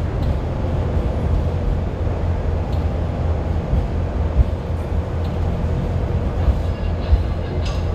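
Kawasaki light rail vehicle running along the track, heard from inside its trailer car: a steady low rumble of wheels and running gear, with a few faint clicks.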